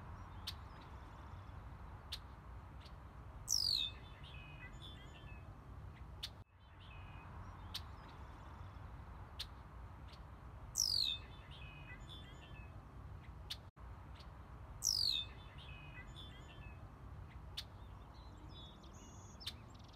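Outdoor birdsong: a bird gives three brief, high whistled calls that slide steeply downward, several seconds apart. Faint scattered chirps and a steady low rumble run underneath.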